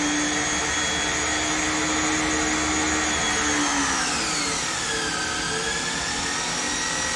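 Electric pressure washer motor and pump running with a high whine over a steady rushing noise. About four seconds in the whine drops in pitch and settles lower as the nozzle manifold starts spraying mist at about 200 PSI.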